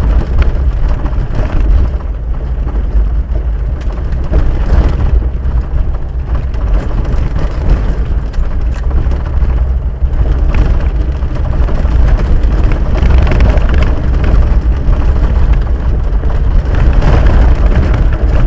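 Cabin noise of a Jeep Wrangler YJ driving on a dirt road: a steady low rumble from the engine and tyres, with frequent small knocks and rattles from the body over the rough track.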